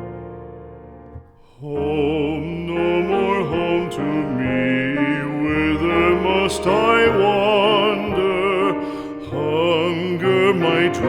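Background music: a piano chord fading away, then from about two seconds in a singer's voice with strong vibrato over the accompaniment.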